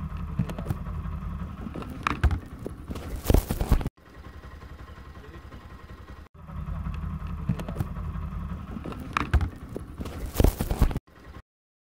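Bajaj Pulsar NS200's single-cylinder engine idling steadily, with a few sharp knocks about three seconds in and again near the end. The engine sound drops away for about two seconds after the first stretch, and everything cuts off suddenly near the end.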